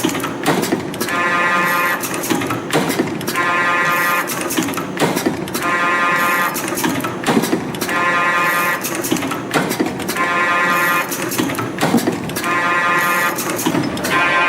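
CNC extension spring coiling machine running in production cycles. Each cycle is about a second of steady whine followed by clicking and rattling, repeating about every two and a half seconds.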